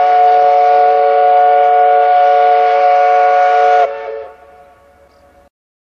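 Paddle steamer's steam whistle blowing one long chord of several notes at once, held steady, then dropping away about four seconds in and dying out soon after.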